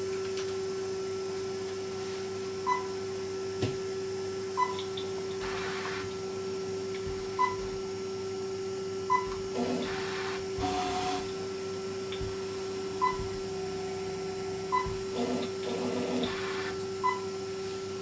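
Vacuum table pump running with a steady hum while the CNC router probes the workpiece. Short beeps, about seven and mostly in pairs, mark the wireless touch probe touching off. Three brief whirs of the machine's axes moving come between them.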